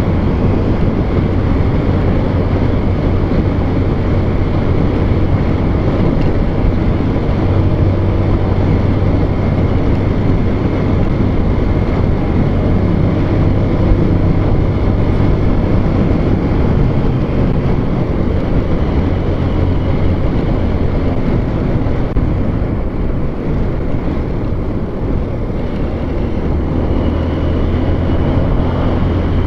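Steady running noise of a vehicle on the move: a constant low engine drone under even road noise.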